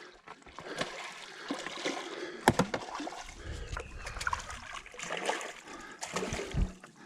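Water splashing and sloshing beside a small boat, with scattered clicks and knocks, the sharpest about two and a half seconds in, as a just-caught fish is handled at the side.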